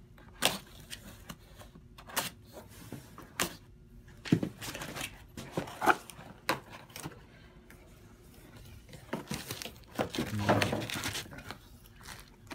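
A cardboard box packed with foam blocks is being opened by hand. Scattered sharp knocks and scrapes of cardboard come through, with a longer, louder stretch of rustling and scraping around ten to eleven seconds in.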